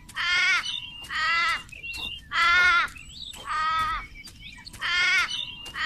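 A bird calling over and over, five calls about a second apart, each about half a second long, with faint short chirps from another bird in between.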